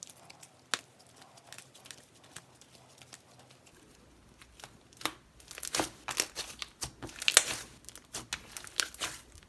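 Butter slime with more slime than clay being squished and stretched by hand, giving small sticky clicks and crackles, sparse at first and busier from about five seconds in.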